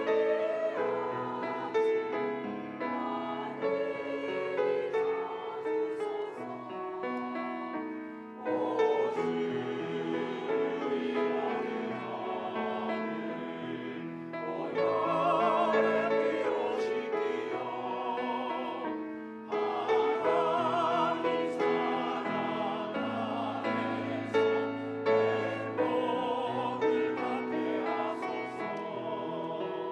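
Church choir singing a hymn anthem in parts with sustained, vibrato-rich notes over a keyboard accompaniment, swelling into louder phrases about a third and two thirds of the way through.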